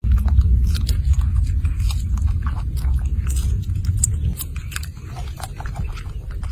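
Irregular crunching clicks over a steady low rumble; the rumble eases off about two-thirds of the way in.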